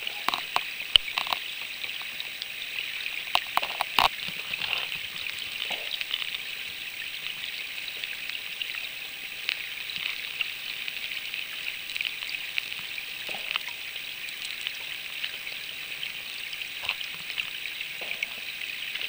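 Flowing river water heard underwater: a steady hiss with a scatter of small crackles and clicks, a few of the clicks louder in the first four seconds.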